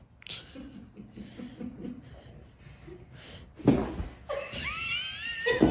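A person laughing, getting louder about two thirds of the way in, with high rising squeals near the end.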